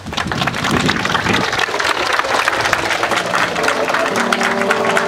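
Audience applauding. About three seconds in, music begins under the clapping with long held notes.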